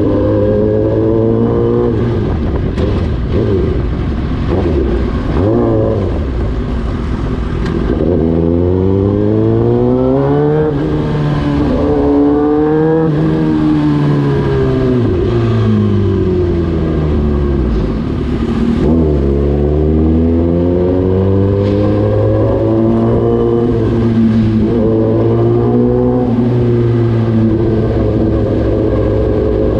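Suzuki GSX-R 1000's inline-four engine running through an Austin Racing aftermarket muffler, its revs rising and falling several times, with a long climb in the middle and a drop to low revs a little after halfway before climbing again.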